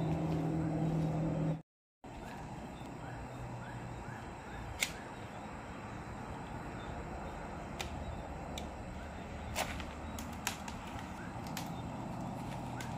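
A low steady hum cuts off abruptly about one and a half seconds in. After a brief gap comes a steady background hiss with faint short rising chirps in small runs, and a few sharp clicks from handling the box cutter and the plastic plant bag.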